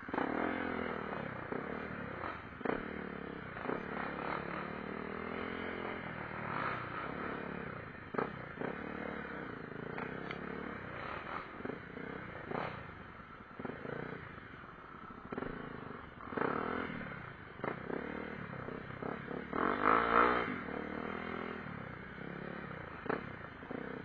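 Honda CRF250L trail bike's single-cylinder four-stroke engine revving up and down at low speed over a rough forest track, with frequent clattering knocks from the bike over the bumps. The engine revs loudest about twenty seconds in.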